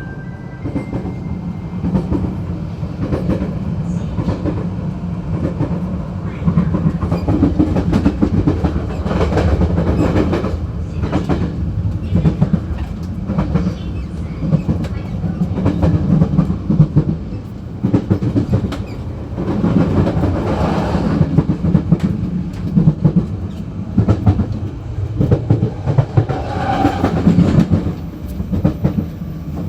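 Taiwan Railway local commuter train heard at the gangway between two cars while running: a steady rumble with constant clicking and knocking from the coupling and wheels. The noise swells louder about a third of the way in, about two-thirds in and near the end.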